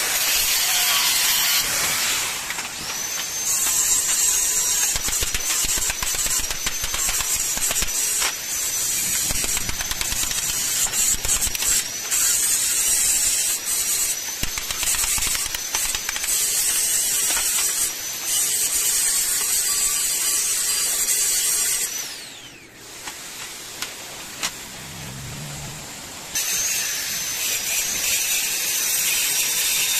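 Handheld electric power tool running with a steady high whine and hiss, its pitch wavering slightly as it works. It stops about 22 seconds in and starts again about four seconds later.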